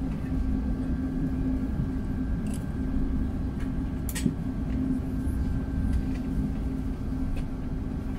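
Steady low rumble and hum inside the cabin of an Airbus A380 on the ground, with a sharp click about four seconds in.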